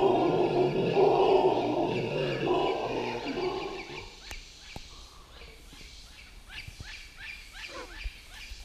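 Red howler monkeys howling together in a loud, low chorus that fades away about four seconds in. After that, only faint high chirps remain, a few a second.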